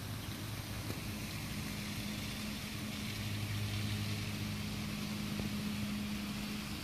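A steady low machine hum, its tone shifting slightly about two and a half seconds in, over a faint hiss.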